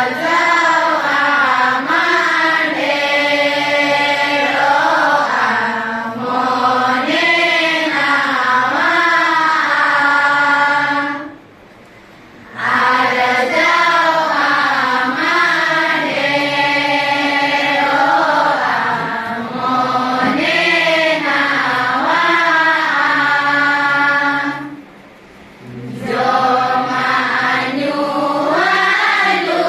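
A large group of girls and young women singing a song together in unison, with no instruments heard. The melody runs in long repeated phrases, broken by two short pauses about eleven and twenty-five seconds in.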